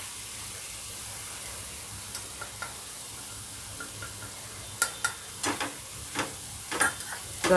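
Masala paste of onion, tomato and ginger-garlic frying in oil in a nonstick pan, spice powders just added: a steady sizzle. From about five seconds in, a spatula stirring it knocks and scrapes against the pan a few times.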